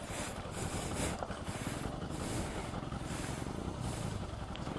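Motorcycle engine running steadily at low revs, with a dense low pulsing and a steady wash of noise over it.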